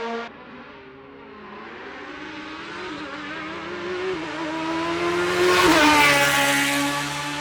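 Hillclimb race car engine accelerating hard, its note rising steadily and growing louder, loudest about six seconds in, where the pitch drops. Just before, another engine note cuts off abruptly in the first moment.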